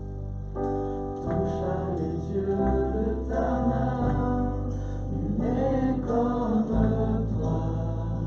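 Music with sustained chords and singing voices, like a choir, coming in about a second in.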